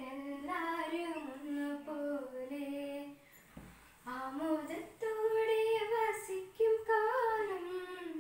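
A girl singing a melodic song solo and unaccompanied, with held, gliding notes and a short breath pause about three seconds in.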